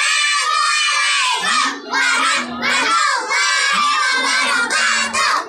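A choir of young children singing loudly in unison, almost shouting, in phrases of about a second with brief breaks between them.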